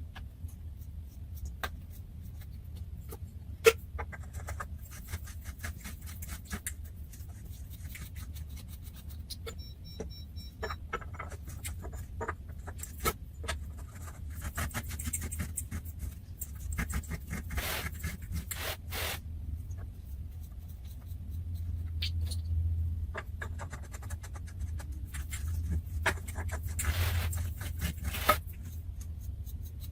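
Scattered clicks, knocks and scraping of mini-trampoline parts being handled and fitted together, over a steady low hum. There is a sharp knock about four seconds in and a short run of faint pips about ten seconds in.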